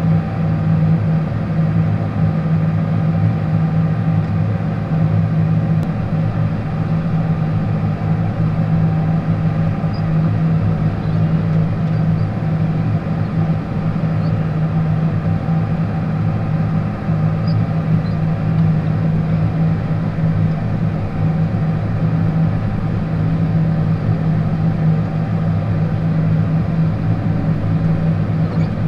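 John Deere tractor's diesel engine running steadily under load while plowing snow, heard from inside the closed cab as a loud, even low drone.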